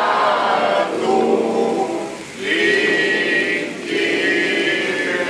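A group of voices singing together in long held phrases, with short breaks between the phrases.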